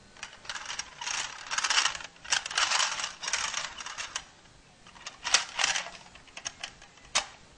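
Plastic toy car rattling and clicking as it is pushed across carpet and handled, in irregular bursts with a few sharp clicks.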